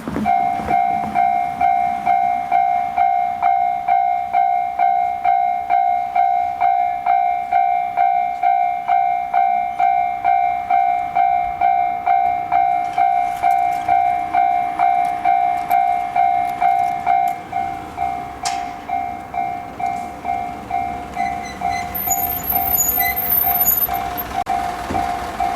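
Japanese railway level-crossing alarm ringing its electronic bell tone, struck about twice a second; it drops in loudness about two-thirds of the way through. Near the end, train noise builds under the bell.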